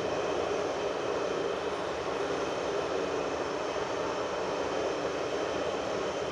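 Steady machinery drone with a hiss and several faint steady tones, unchanging throughout: the running noise of a large industrial assembly hall while an overhead crane is working.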